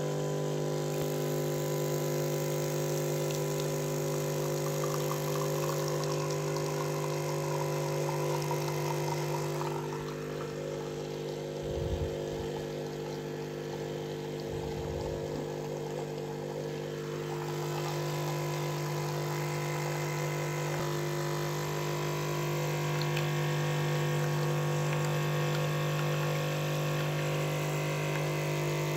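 A small electric appliance running with a steady hum and low buzz. There are a couple of low knocks about twelve and fifteen seconds in.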